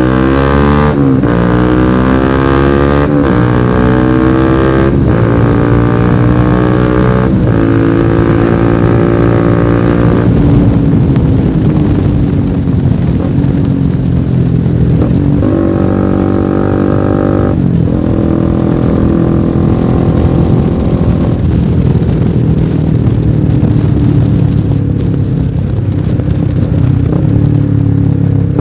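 Honda CBR150R's single-cylinder engine through a lightly modified aftermarket exhaust, accelerating up through the gears. The revs rise in several runs, each cut short by a quick upshift. The engine then eases off, revs up once more, and settles to a steadier, slowly falling note.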